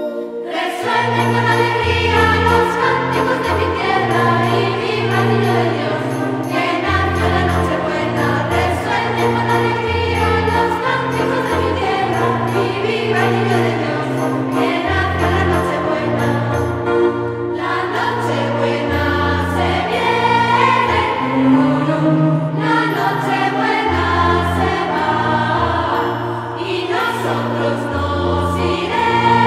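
Background music: a choir singing over sustained bass notes that change every second or so.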